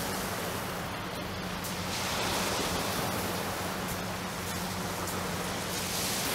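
Small waves washing onto a shingle beach, heard as a steady hiss that swells a little about two seconds in, with a steady low hum underneath.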